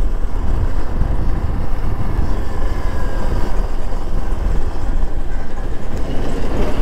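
Motorcycle on the move: a steady rush of wind on the microphone, heaviest in the low end, over the running engine.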